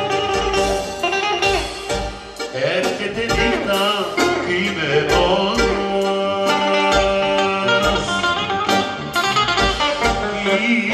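Live band dance music played through PA speakers: electric guitar and keyboard over a steady beat.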